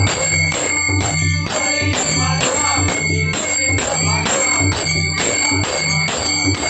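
Bhajan music: brass hand cymbals (taal) struck in a steady beat about twice a second with a lasting metallic ring, over harmonium, group singing and low pakhawaj drum strokes.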